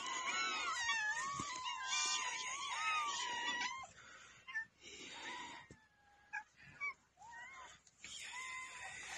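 Many cats meowing at once in overlapping, wavering calls. About four seconds in the chorus thins to scattered single meows.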